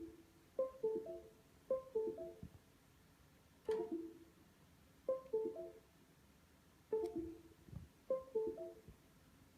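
A laptop repeatedly playing a short chime: a quick run of clear, plucked-sounding notes falling in pitch. It comes round roughly every one to two seconds.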